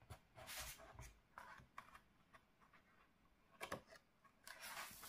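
Faint rustling and light ticks of paper as the pages of a large hardbound art book are handled, with a louder rustle about three and a half seconds in as a hand takes hold of the page to turn it.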